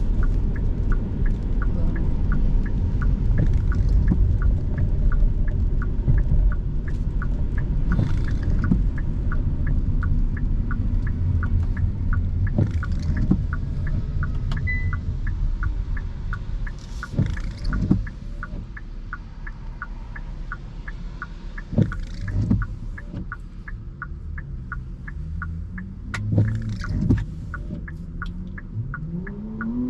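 Car interior driving noise: steady engine and road rumble, easing off about halfway through, with a regular fast ticking running all along. Near the end the engine note rises as the car pulls away.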